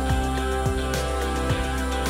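Instrumental background music with held notes over a low drum beat.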